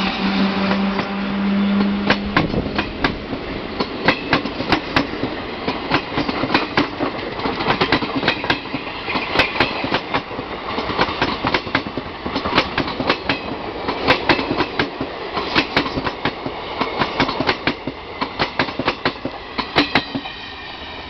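Passenger coaches of an Indian Railways train rolling past at speed, the wheels clacking in quick clusters over the rail joints. A steady low hum from the just-passed WAG-7 electric locomotive stops about two seconds in, and the clatter eases off near the end as the last coach goes by.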